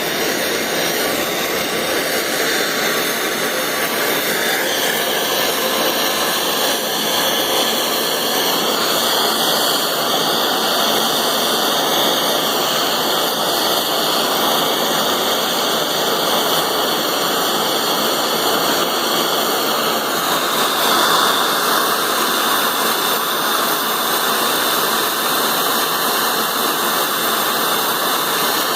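Gas soldering torch flame hissing steadily, its tone shifting slightly several times, about twenty seconds in most plainly.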